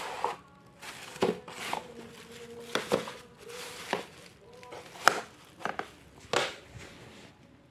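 Plastic bubble-wrap packaging crinkling and rustling as it is handled, with several sharp clicks and knocks.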